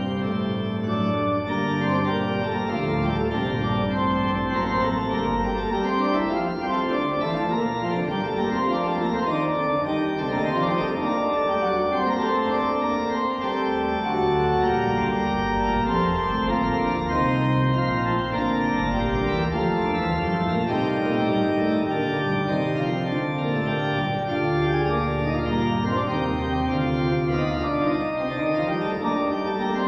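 Holtkamp pipe organ, built in 2010, playing an anonymous 17th-century Italian keyboard sonata in the second tone. Several lines move at once over low bass notes held for several seconds, at a steady loudness.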